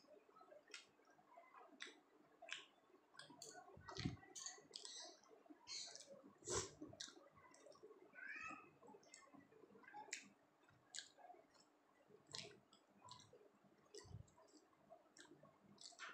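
Close-miked eating sounds: irregular soft wet clicks and smacks of a mouth chewing soft paratha and chana dal, with a brief high pitched sound about halfway through.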